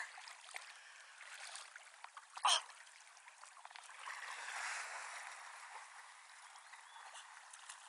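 Faint running river water, then a swell of splashing about four seconds in, lasting over a second, as a dog moves through the shallow water. A brief, sharp sound comes about two and a half seconds in.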